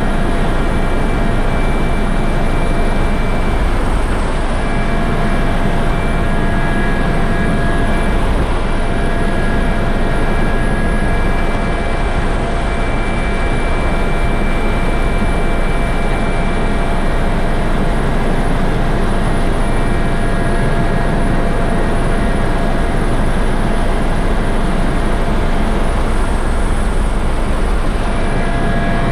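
U.S. Coast Guard helicopter in flight, heard from inside the cabin: a steady, loud rumble of engine and rotor with a constant high whine running through it.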